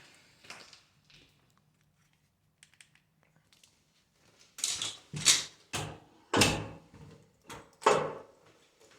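A locked door being shoved and rattled: a few faint clicks, then in the second half about six loud bangs and rattles as it holds fast in its frame.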